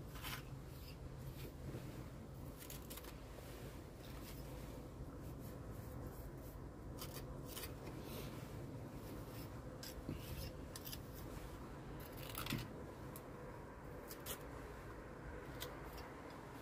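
Small steel pointing trowel scraping and tapping against masonry as lime mortar is pressed into the joints between cobbles. It is a run of faint, irregular scrapes and clicks.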